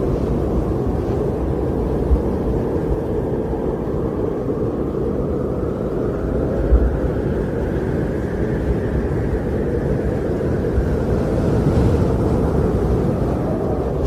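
Strong wind blowing steadily, with a deep rumble and a faint howl that slowly rises and falls in pitch.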